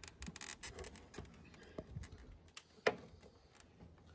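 Scattered clicks and scraping of a pry bar working the plastic trim clips and tabs behind a pickup's grille, with one sharp click about three seconds in as a tab lets go.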